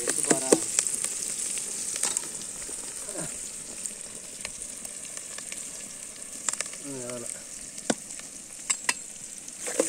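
Sliced shallots sizzling as they fry in hot oil in an aluminium pot, stirred with a metal spoon that clinks against the pot now and then. The sizzle is louder for the first couple of seconds, then steady and softer.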